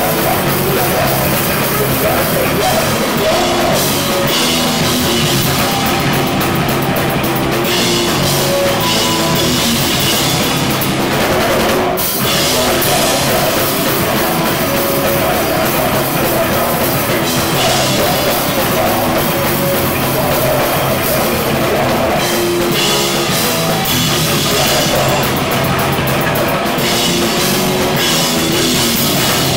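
Loud, heavy rock music with a full drum kit, in the style of hardcore punk, with a brief break about twelve seconds in.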